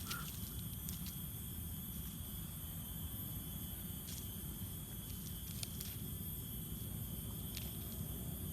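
Steady trilling of crickets or other insects in a continuous chorus, over a low rumble, with a few faint clicks scattered through it.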